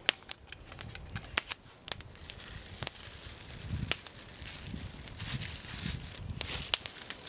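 Plastic wrapping crinkling and rustling as a thin flatbread is unwrapped and pulled out, with a long rush of crinkling about five seconds in. Sharp crackles from the wood campfire pop through it.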